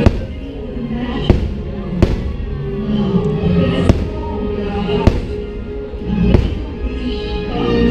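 Fireworks bursting: about six sharp bangs a second or so apart, over loud music from the fireworks show soundtrack.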